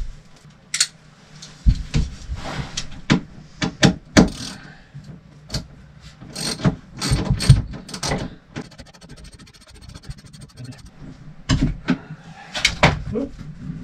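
Scattered knocks, taps and rubbing from hands working on a motorhome's wooden bed platform and its frame. For about two seconds in the middle, a socket ratchet clicks rapidly as a bolt is turned.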